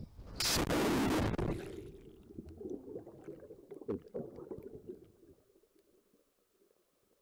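A camera plunging into lake water: a splash about half a second in, then the microphone goes under and the sound turns to muffled underwater bubbling and gurgling with a few pops, fading out over the next few seconds.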